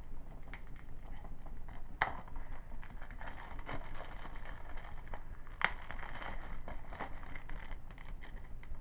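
Plastic shrink-wrap on a DVD case crinkling and scraping as it is cut open with a knife: irregular crackling with small clicks, and two sharper clicks, about two seconds in and again a little past halfway.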